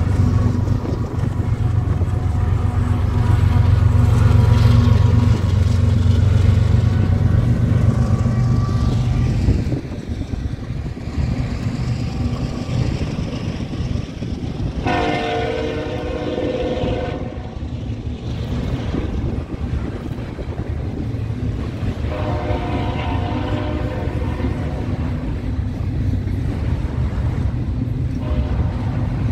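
GE Evolution-series (GEVO) diesel locomotive passing close, its twelve-cylinder engine running loud and steady, dropping away about ten seconds in to the steady rolling rumble of the intermodal train's cars. A locomotive air horn sounds twice in the second half, a blast of about two and a half seconds, then one of about three seconds some seven seconds later.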